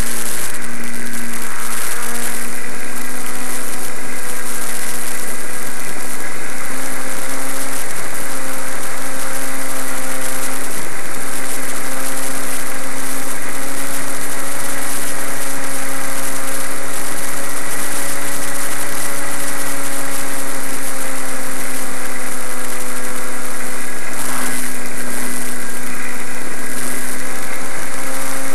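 Motor and propeller of a Zagi flying-wing RC plane heard from an onboard camera: a steady drone mixed with wind rush. Its pitch shifts slightly a few times.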